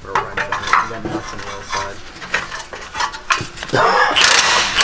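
Metal clinking and rattling from tools and loose exhaust hardware. About four seconds in, a cordless half-inch impact wrench spins up with a rising whir and runs on an exhaust pipe bolt.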